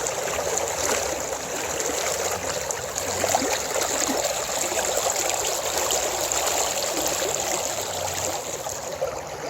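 A stream of water flowing and trickling steadily, without a break.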